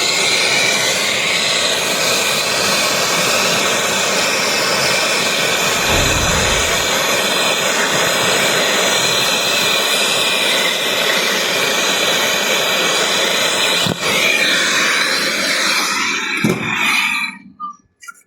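A loud, steady hissing rush, like gas jetting under pressure, that stops about 16 to 17 seconds in.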